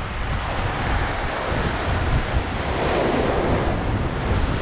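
Ocean surf surging and breaking against the pier, swelling louder about halfway through, with wind buffeting the microphone in a low rumble.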